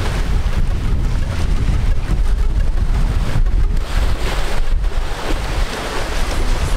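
Wind buffeting the microphone over small surf breaking on a beach, a loud steady rumble with a hiss of waves.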